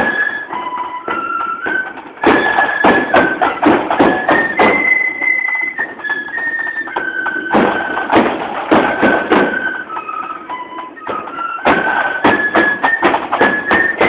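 Marching flute band playing a tune: massed flutes carry a stepping melody over the beat of a bass drum and other drums. The sound is close and loud, with a short dip about two seconds in.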